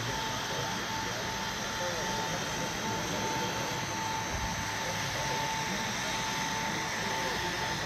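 Indistinct chatter of many people in a large hall over a steady background noise, with a constant high tone running underneath.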